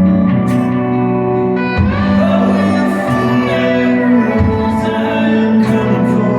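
A band playing live: sustained guitar chords over a bass line, with the bass changing note about every two and a half seconds.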